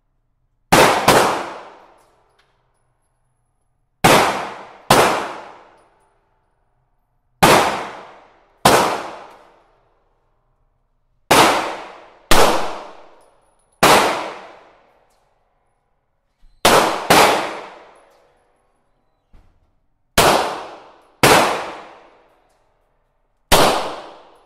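Gunshots on an indoor shooting range, about fourteen of them, fired mostly in pairs about a second apart with a few seconds between pairs. Each shot is followed by a short echoing slapback off the range walls.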